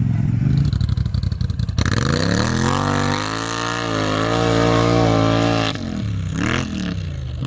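ATV engine revving: running low and uneven, then about two seconds in climbing sharply to high revs, held there with a wavering pitch for about three seconds before dropping back to lower, uneven revs.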